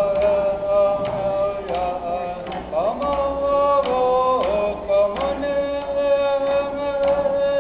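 Iñupiaq dance song: voices sing long held notes with sliding pitch changes over sharp, repeated strikes of skin frame drums.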